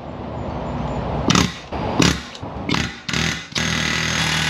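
Pneumatic air hammer rattling against a wheel hub in a cast iron steering knuckle, driving at it to push the hub out of the wheel bearing. It runs in uneven bursts, then in one longer steady run near the end. The hub is stuck and not popping out.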